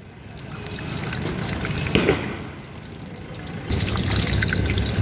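Batter-coated potato vadas deep-frying in a kadai of hot oil: a steady crackling sizzle that grows louder and fuller a little under four seconds in, with a brief louder knock about two seconds in.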